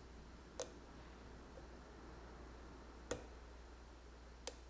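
Three faint, sharp clicks: about half a second in, after about three seconds, and near the end. They come from a hook pick and tension tool working the pins of a Schlage knob cylinder, against otherwise near silence.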